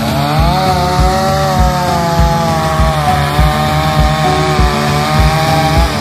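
Chainsaw running at high revs, its pitch rising in the first second and then holding steady, over background music with a steady beat.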